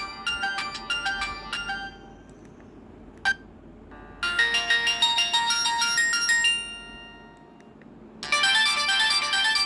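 Samsung GT-E1150 mobile phone playing its built-in electronic ringtone melodies. One tune ends about two seconds in, a single click comes about a second later, a short melody plays from about four seconds in and fades out, and another tune starts near the end.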